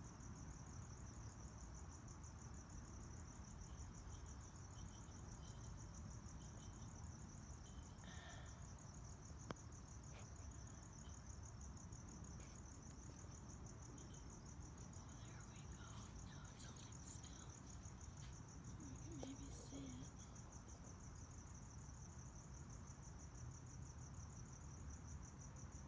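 A cricket trilling faintly and steadily in a continuous high, finely pulsed note, over a low background hum.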